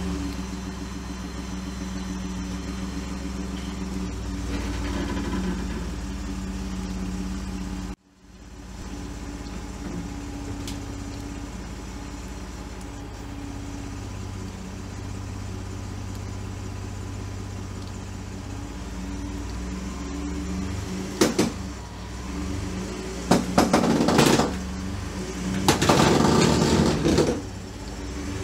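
Pickup truck engine idling steadily while the truck backs up and nudges a car on wheel dollies. Near the end come several loud rattling bursts as the car is pushed back on the dollies.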